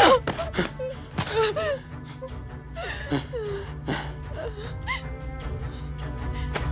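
Tense drama score with a steady low drone, under short gasping, whimpering breaths from a person in distress.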